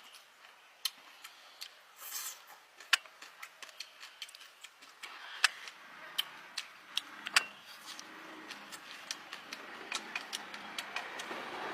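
Irregular sharp clicks and taps, a few louder knocks among them, over a faint hiss that grows in the second half.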